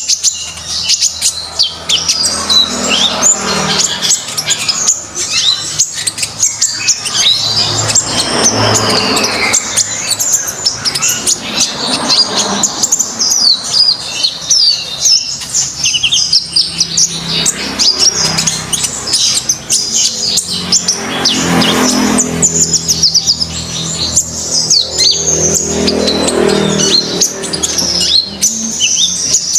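A konin songbird singing in full, busy song: a continuous stream of rapid high chirps and trills with no pauses.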